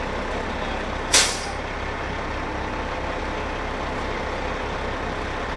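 Heavy vehicle engine running steadily with a low, even rumble, with one short, sharp hiss of released air about a second in, like an air brake.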